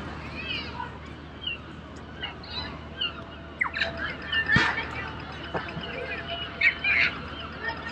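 Small birds chirping again and again over a steady low hum of city traffic, with one sharp knock about halfway through and a thin steady high whine joining from the middle on.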